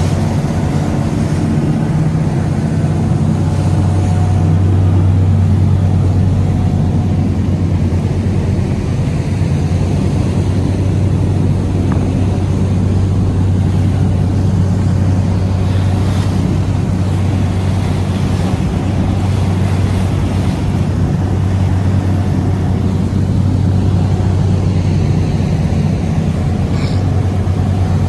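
A lobster boat's engine running steadily underway, a deep constant drone, over the rushing wash of water along the hull and wake.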